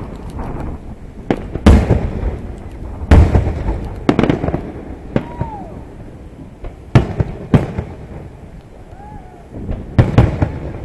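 Aerial fireworks shells bursting: about seven sharp bangs, some in close pairs, each followed by a rumbling echo.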